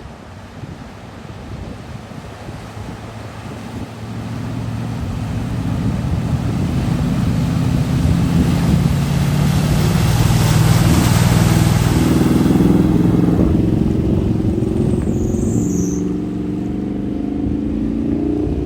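A vehicle's engine getting louder as it drives through deep floodwater, with a rushing splash of water loudest midway, then the engine running on steadily.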